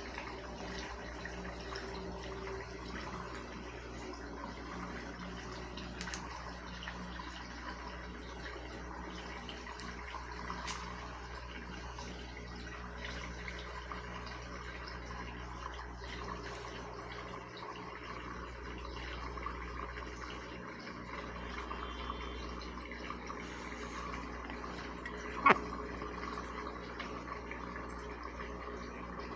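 Consul CWS 12 washing machine filling with water: a steady rush of water into the tub. One sharp click comes about 25 seconds in.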